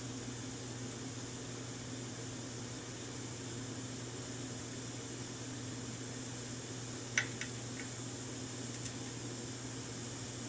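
Steady hiss of a gas (butane) soldering iron burning at the tip while a joint is heated, with a steady low hum beneath it. A few faint clicks come about seven seconds in.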